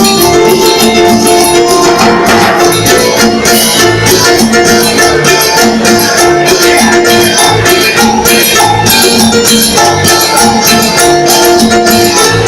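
Latin dance music played on an electronic keyboard, with held chord notes over a busy, even percussion beat.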